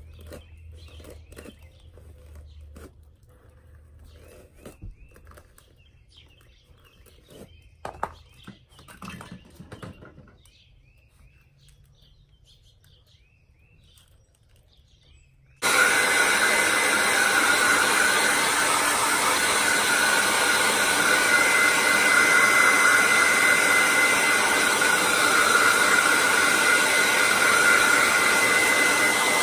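Handheld hair dryer with a comb attachment switching on suddenly about halfway through and running steadily, with a thin whine over its rushing air. Before it comes on there are only faint scattered ticks and scratches of brushing through hair.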